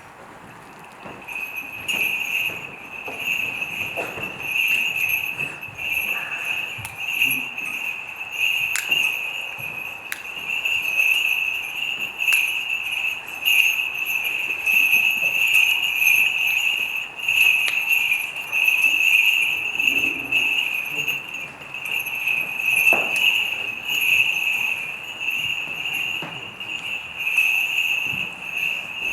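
A steady high-pitched ringing that pulses in strength, with scattered light clicks and knocks over it.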